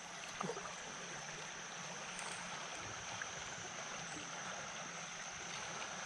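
Creek water running steadily.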